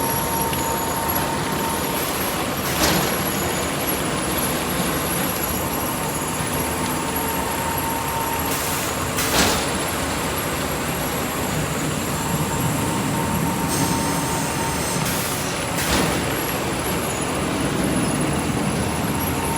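Cooling pad production line machinery running with a steady mechanical din and a faint high whine that comes and goes. A sharp knock repeats about every six and a half seconds, three times.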